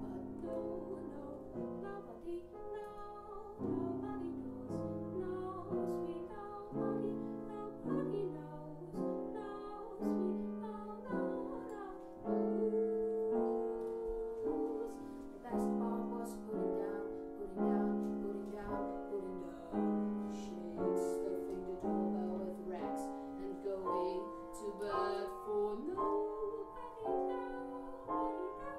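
Piano playing a steady pattern of chords, struck about once a second, with a woman's singing voice coming in over it now and then.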